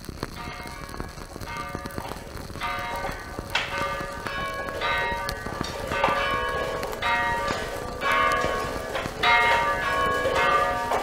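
Church bells ringing, a steady run of strokes that starts faintly and grows louder.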